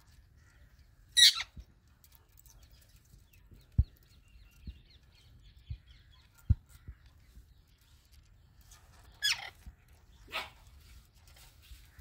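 Parrots squawking: one loud harsh screech about a second in and two more near the end, with faint twittering between. A few short low knocks are heard in between.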